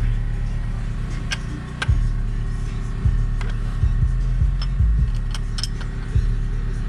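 Background music with a deep bass line, with a few light metallic clicks and clinks of small parts being handled scattered through it.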